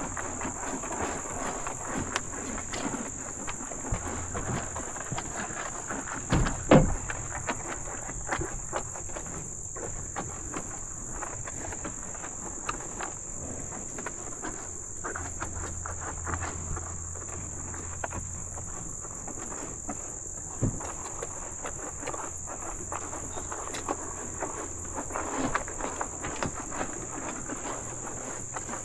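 A steady, high insect chorus over irregular rustling and small knocks from cattle moving and feeding at a trough, with one louder thump about six and a half seconds in.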